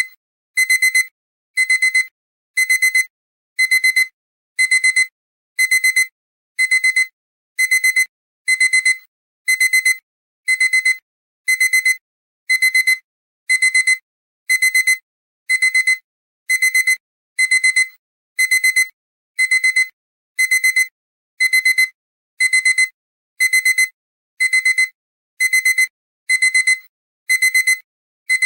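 Electronic alarm-clock beeping: short, loud, high-pitched bursts of rapid beeps repeating about once a second, the signal that the four-minute countdown has run out.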